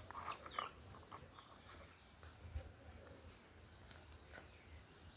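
Faint outdoor ambience with a few short bird chirps within the first half-second, then only faint scattered ticks.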